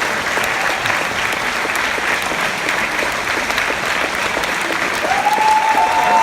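Concert audience applauding, dense steady clapping; about five seconds in, cheering voices rise over it.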